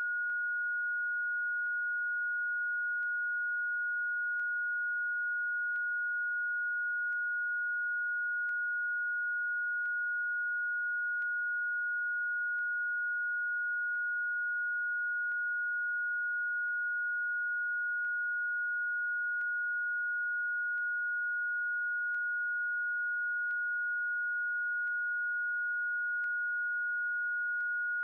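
A single steady, high-pitched pure sine tone, held at one pitch without change: an electronically generated Rife frequency tone.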